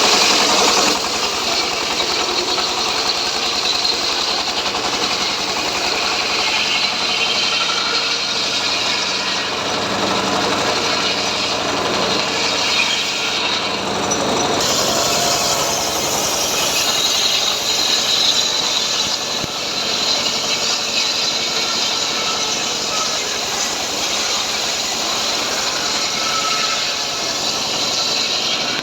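Engine-driven portable sawmill running steadily while sawing rain tree (trembesi) logs: a continuous engine drone under a loud, hissing saw noise. The saw noise thickens and brightens about halfway through.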